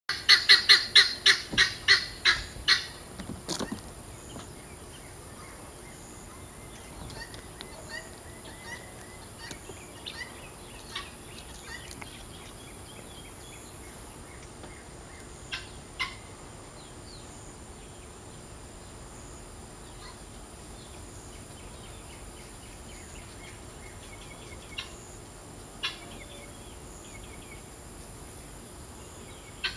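Poultry from the chicken house calling in a fast run of loud, repeated notes, about four a second, which fades out after about three seconds. After that there are only faint bird chirps and a few soft clicks.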